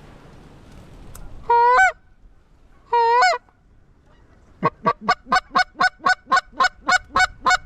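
Goose call blown by a hunter to bring geese into the decoys: two long honks, then a fast run of about a dozen short clucks, about four a second.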